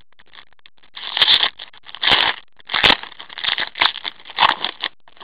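Foil wrapper of a hockey card pack crinkling and tearing as it is ripped open by hand, in a run of irregular crackles and rips.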